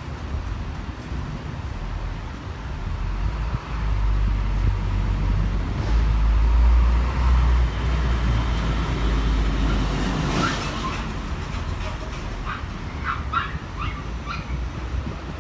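Street traffic outside a shop window: a low steady rumble that swells to its loudest about six to eight seconds in, with a passing hiss around ten seconds. From about twelve seconds in, a run of short high-pitched calls comes over it, several a second.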